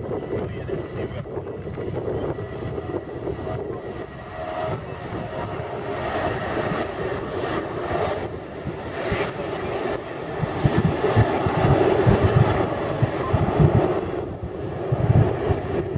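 Boeing 737-800's CFM56-7B jet engines at takeoff thrust during the takeoff roll, a steady jet roar that grows louder about ten seconds in, with a deep rumble underneath from then on.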